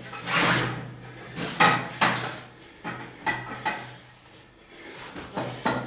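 Camp stretcher being put together: the metal frame bars click and knock several times as the canvas bed is pulled over an end bar and tensioned, with the rustle of the heavy fabric between the knocks.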